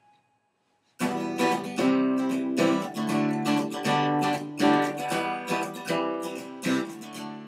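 Acoustic guitar strummed in a steady chord pattern, starting about a second in.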